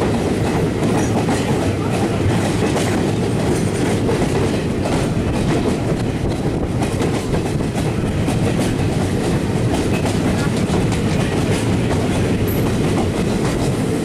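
Steady rumble and clatter of Indian Railways passenger-coach wheels on the rails, with a run of clickety-clack over rail joints. Heard from aboard a moving train as another train runs alongside on the next track.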